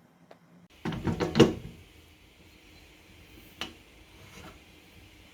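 A quick clatter of knocks about a second in, loudest at the end of the run, then a single sharp click a couple of seconds later.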